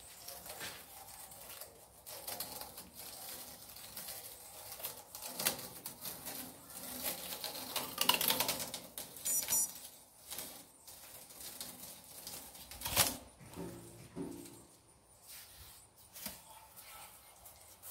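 Yellow tire-wrap tape being pulled off the rim of a Buffalo 14-inch band saw's spinning wheel: irregular ticks and rustles as the tape peels away, with a few louder snaps.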